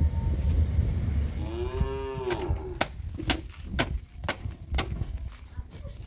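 A cow mooing once: a call about a second long that rises and falls in pitch. It is followed by six sharp clicks about twice a second. A low rumble fades away over the first couple of seconds.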